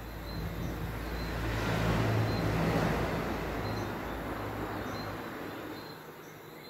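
A motor vehicle passing by: engine hum and road noise swell to a peak about two to three seconds in, then fade away. A faint high chirp repeats about once a second throughout.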